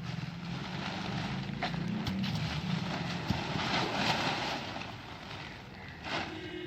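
An engine running steadily, with a rushing hiss over it that swells about halfway through and then eases off.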